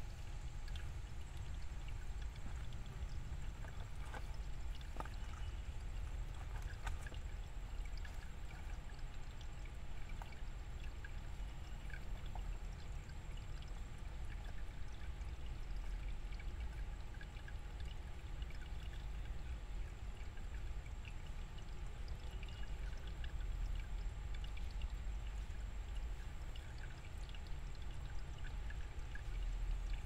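Shallow stream of water running and splashing between rocks in a steady flow, with scattered small drips and plinks.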